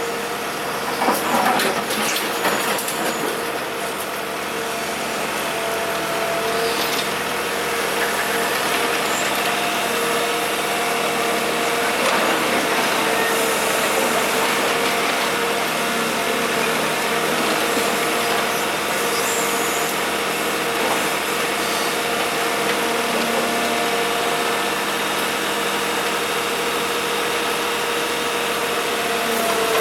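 Diesel engine of heavy construction machinery running steadily, with a constant whine over it. A few knocks sound in the first couple of seconds.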